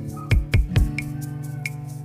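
Background electronic music with a drum beat over held synth chords.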